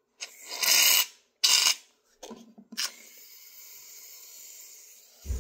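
Aerosol shaving cream can spraying foam: two short loud hissing bursts, then a steady hiss for about three seconds. A low thump near the end.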